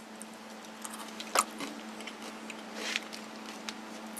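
A few light clicks and taps from small objects being handled, one sharper click about a second and a half in and a soft rustle near three seconds, over a steady low hum.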